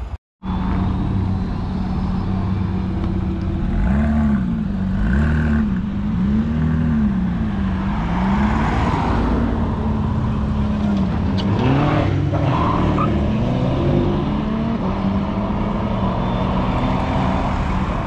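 Car engines running at a car meet, with one engine's revs rising and falling over and over in quick blips, in two runs of a few seconds each, while other cars idle and pull away.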